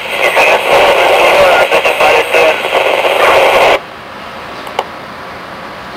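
Realistic Pro-43 scanner radio's speaker playing a received narrowband signal, thin and band-limited with warbling, swooping tones over noise. It cuts off abruptly a little under four seconds in, leaving a low steady hiss, and a short click follows about a second later.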